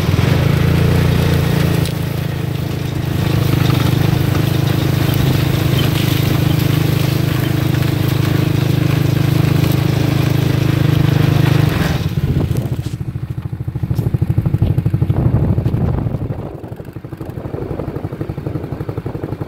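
Diesel engine of a Caterpillar rubber-track tractor pulling a corn planter, running steadily and loud while close by. About twelve seconds in, the deep engine tone drops away as the tractor moves off, leaving a weaker, pulsing running sound.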